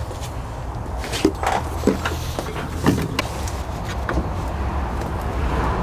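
A few sharp clicks and knocks of parts being handled in a car's engine bay, over a steady low hum.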